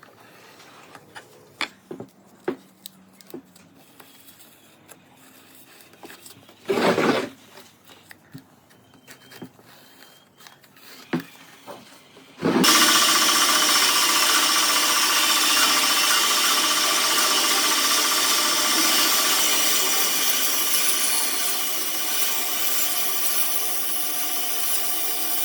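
Scattered knocks and clicks of wood and tools being handled, with one brief loud rasp about seven seconds in. About halfway through, a woodworking power tool starts abruptly and runs steadily on wood with a high whine.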